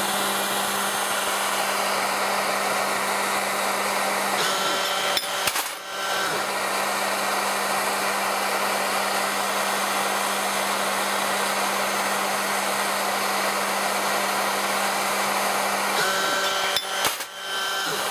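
Two Bullfinch pencil-flame gas torches hissing steadily on a Bench Source automatic brass-annealing machine, over a steady low hum from the machine. Two brief knocks come about five seconds in and again near the end.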